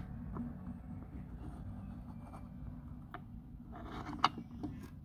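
Phone microphone handling noise: a steady low rumble from a hand covering the mic, with a few faint clicks and one sharper click about four seconds in.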